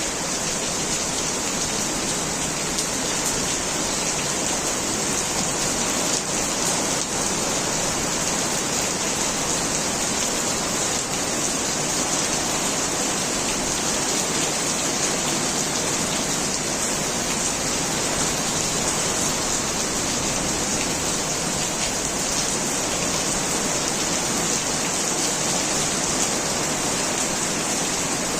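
Heavy rain falling steadily, a dense even hiss with the patter of drops hitting hard surfaces.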